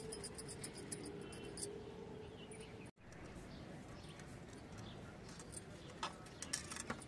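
A small bird chirping in a quick run of high notes that stops about a second and a half in, over faint outdoor background. A few light clicks near the end.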